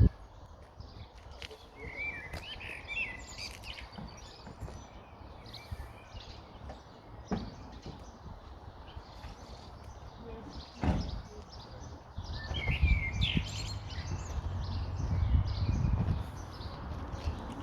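Birds chirping in short bursts, twice, over a low rumble that grows louder in the second half, with a couple of sharp knocks.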